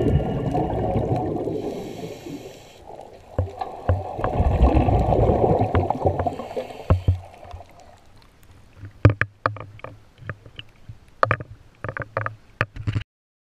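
Scuba divers' exhaled bubbles rushing and gurgling, heard through an underwater camera housing, in surges for the first several seconds. From about nine seconds in come scattered sharp knocks and splashes of water against the housing at the surface.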